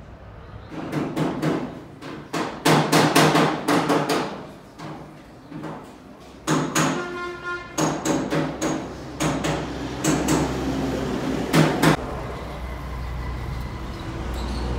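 Hammer blows on metal in quick runs with short pauses between, each strike ringing briefly. The hardest blows come between about two and four seconds in.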